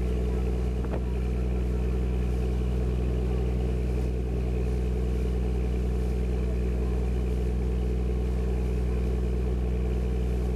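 Tour boat's engine running steadily, a constant low drone heard from on deck.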